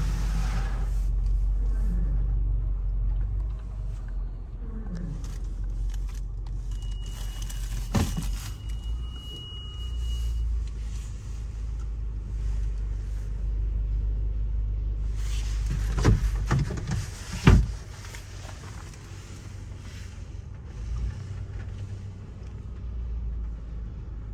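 A vehicle's engine idling with a steady low rumble. A thin high beep sounds for about three seconds starting around seven seconds in, and there are sharp clunks at about eight seconds and twice more around sixteen to seventeen seconds.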